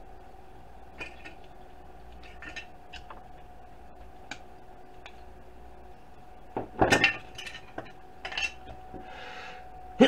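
Diagonal cutters clicking and clinking against a small circuit board and plastic housing as parts are snipped and pried off, with a loud sharp crack about seven seconds in and a shorter one a second or so later.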